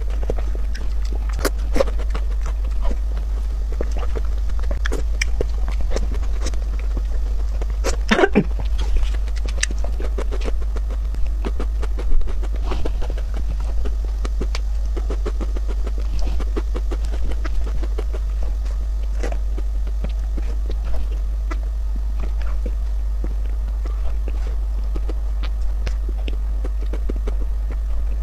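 Close-miked eating of soft cream mousse cake: many small wet mouth and lip smacks and metal spoon scrapes and taps on the cake board, over a steady low hum.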